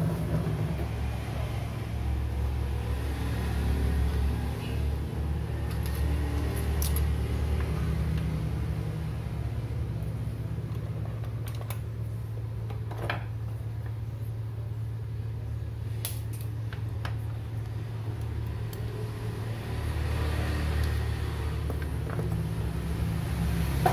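A steady low hum, with a few scattered light clicks and clatters of laptop parts being handled.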